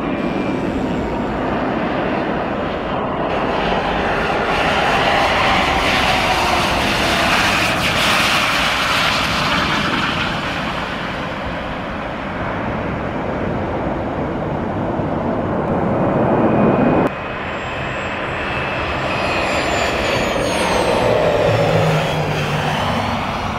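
Business jet turbofan engines: a steady rush with a thin whine from jets landing and taxiing. About 17 seconds in the sound cuts abruptly to another jet's engines.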